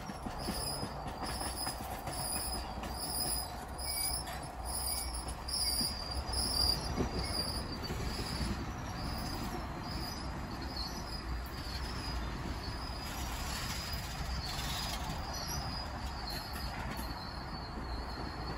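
Passenger cars of a slow-moving train rolling past in a backing move: a steady low rumble from the wheels and trucks, with some wheel squeal and clickety-clack over the rail joints. A high ring repeats about once a second through the first half.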